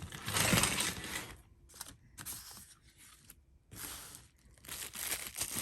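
Hands handling a knife's packaging: a run of short rustling and scraping bursts, the loudest about half a second in.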